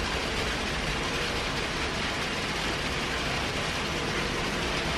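Steady, even hiss of outdoor background noise, with no distinct event standing out.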